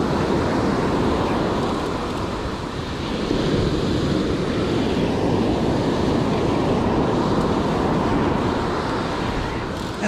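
Ocean surf washing onto the shore, a steady rushing that swells and eases a little, with wind buffeting the microphone.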